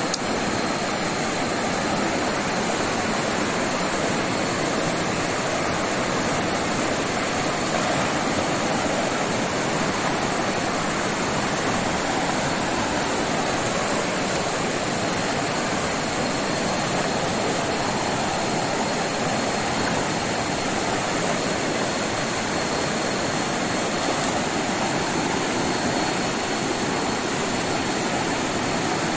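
Fast-flowing river running over rocks and rapids: a steady, unbroken rush of water.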